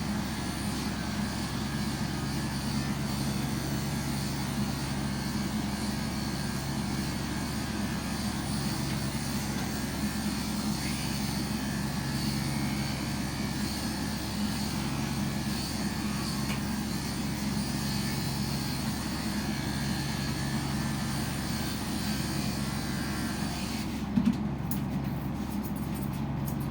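An electric motor running steadily, with a whirring rush and a low hum that fades and returns every few seconds. There is one short click about 24 seconds in.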